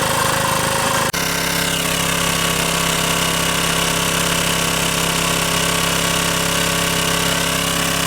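Engine-driven water pump running steadily while pumping water, with a brief break in the sound about a second in.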